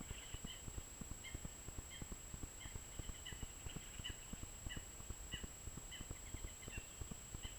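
A small bird chirping over and over in short calls, about one to two a second, over an irregular low rumble and knocking. A thin steady high tone sits behind it.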